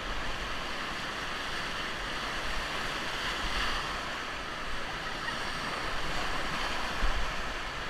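Whitewater of a river rapid rushing steadily around the raft as it runs the rapid, with wind buffeting the microphone.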